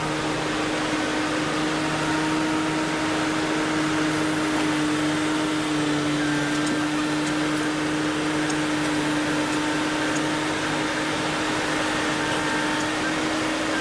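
A machine running steadily with a constant low hum under an even rushing noise.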